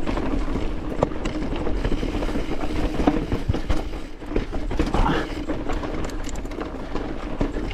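Mountain bike rattling over a rocky trail: knobby tyres hitting rocks and the bike clattering in rapid, irregular knocks over a steady rumble.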